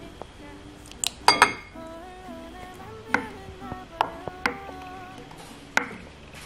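Background music with a gentle melody over a wooden spoon stirring wet batter in a glass mixing bowl. The spoon knocks sharply against the glass several times, loudest about a second in.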